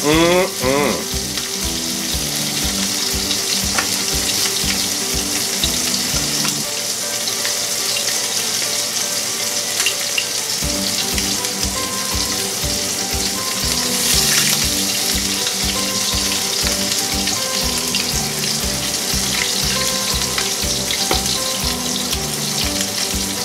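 Chicken leg quarter frying skin-side down in hot oil in a steel pan: a steady sizzle as the skin renders and browns. Quiet background music with an even beat runs underneath.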